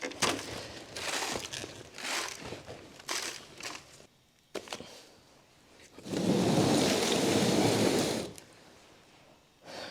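Potting media being scooped, poured and brushed into seed-starting flats: scattered short rustles, then a longer pour of loose mix lasting about two seconds, starting about six seconds in.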